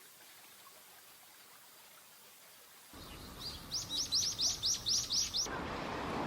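Common kingfisher calling: a quick run of about eight high, thin, shrill notes, roughly four a second, then a rushing wind- or water-like noise takes over near the end.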